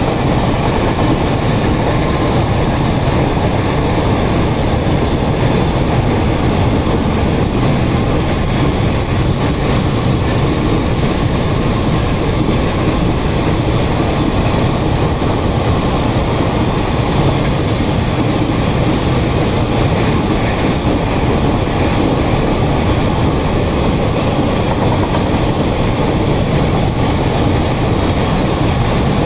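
Long freight train of open gondola wagons loaded with containers rolling past at steady speed: a continuous, loud rumble and clatter of wheels on rail.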